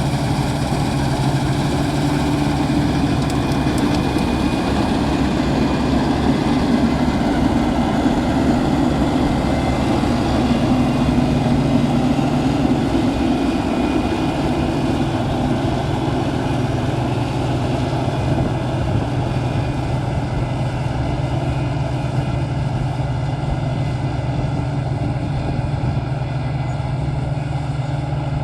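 Claas Dominator 88 combine harvester running steadily during the wheat harvest: a constant diesel engine drone that holds one pitch and level throughout.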